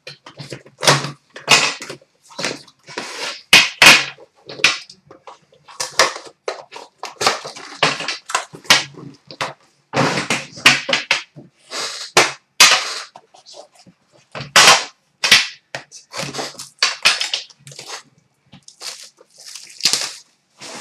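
Packaging of a hobby box of 2014-15 Upper Deck The Cup hockey cards crinkling and tearing in quick irregular crackles as the box is unwrapped and its metal tin is taken out and opened.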